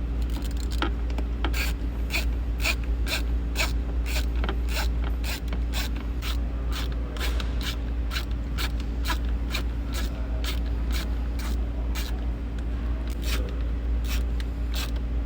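Ratcheting screwdriver clicking steadily, about two to three clicks a second, as the Torx screws of the rear sound bar speaker cover are driven back in, over a steady low hum.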